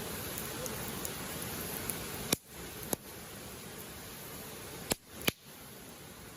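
Wood campfire crackling, with a few sharp pops, the loudest about two and a half seconds and five seconds in. Under it the steady rush of a river.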